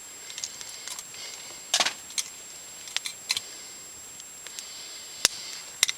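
Scattered light clicks and metallic clinks from camp cooking gear being handled, with one sharp click about five seconds in. A faint steady high-pitched whine runs underneath.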